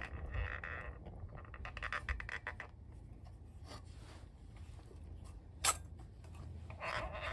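Metal hurricane lantern being handled by its wick knob and globe: a scrape, a quick run of small clicks, one sharp click a little before the end, then another scrape.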